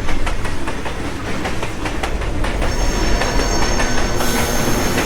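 Large train running on the rails, a steady rumble with its wheels clattering over the rail joints; a high, steady metal squeal joins about halfway through.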